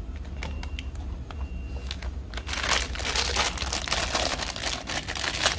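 Thin clear plastic bag crinkling as hands handle it, with a few light clicks at first. The crinkling turns dense and loud about halfway through.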